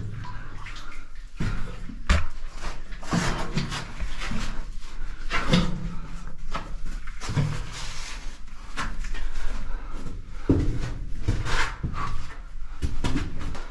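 Close, irregular scraping, scuffing and knocking of a caver crawling through a muddy, rocky cave passage, with gear and body brushing against rock and mud and dull thumps as hands and knees are set down.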